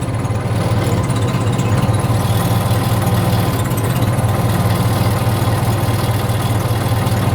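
Case 450C crawler dozer's diesel engine running steadily at idle.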